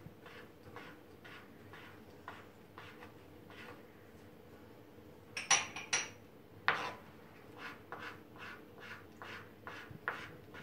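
Knife slicing kaşar cheese on a plastic cutting board: faint, regular knocks of the blade on the board, about two a second. About five seconds in there are a few sharper, ringing clicks, followed by a louder knock.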